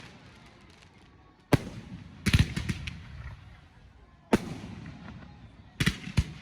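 Aerial fireworks bursting close by: a sharp bang about a second and a half in, a quick cluster of bangs just after, another single bang past four seconds, and a rapid run of bangs near the end, each trailing off in an echoing rumble.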